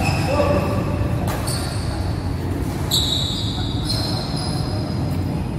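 Sports shoes squeaking on an indoor badminton court as players shift position, several short squeaks, with a few sharp knocks among them. It all echoes in a large hall, over a low murmur of voices.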